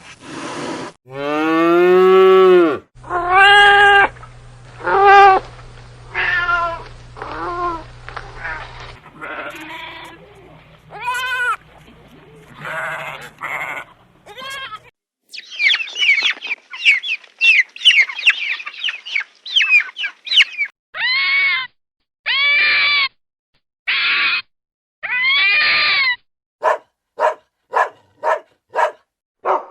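A series of different animal calls, one after another: drawn-out bleating and lowing calls of farm animals such as goats and cattle in the first half, then a few seconds of quick high-pitched chattering, then a run of repeated arched calls and a string of short quick calls near the end.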